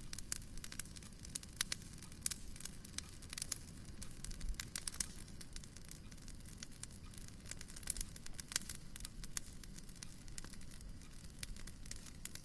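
Wood fire crackling in a fireplace: irregular sharp pops and snaps over a low steady rumble.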